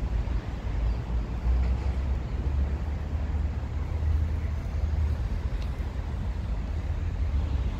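Outdoor background noise: a steady low rumble with no distinct event in it.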